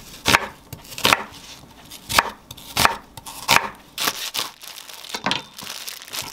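Chef's knife slicing an onion on a wooden cutting board, about five sharp cuts roughly a second apart, then cutting through a plastic-bagged bunch of enoki mushrooms. Plastic bag crinkling near the end.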